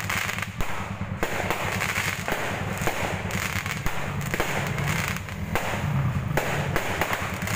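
Aerial fireworks going off overhead: a rapid, continuous run of bangs and crackles over a steady low rumble.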